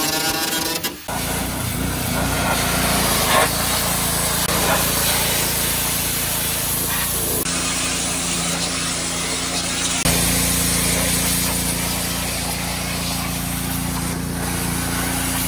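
Pressure washer running steadily, its jet hissing as it sprays down a Jon boat hull, over a constant low hum from the machine.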